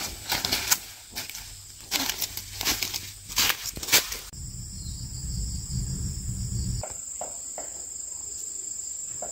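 Insects chirring in a steady high drone. Over the first four seconds, crackles and rustles in the undergrowth sound over it; after an abrupt change the drone continues with a low rumble for a few seconds.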